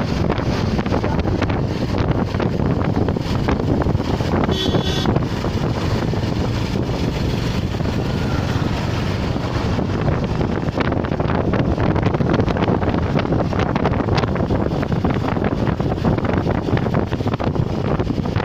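Wind buffeting the microphone: a steady rumbling noise, with a brief high whistle-like tone about five seconds in.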